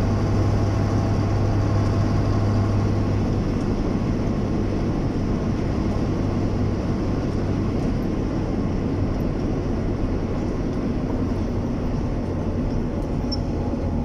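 Steady engine drone and tyre/road noise of a vehicle cruising on a highway, heard from inside the cab. The engine note drops slightly about twelve seconds in.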